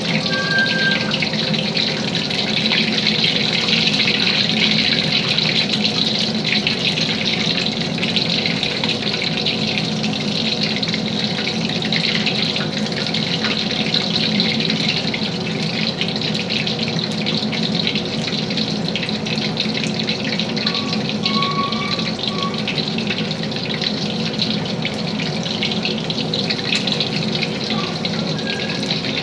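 Hot oil sizzling steadily around chicken burger patties deep-frying in a wok, with a constant fine crackle.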